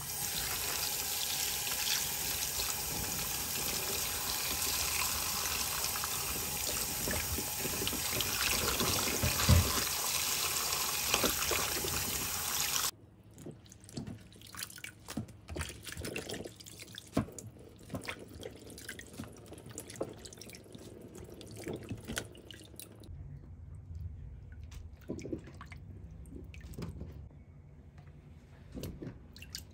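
Tap water running into a plastic bowl of cut vegetables in a stainless steel sink, with a single thump partway through; the flow cuts off suddenly about thirteen seconds in. Then a hand swishes the vegetables in the water, giving irregular splashes and sloshes.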